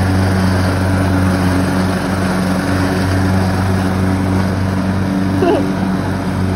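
Troy-Bilt riding lawn mower's engine running steadily while it mows grass.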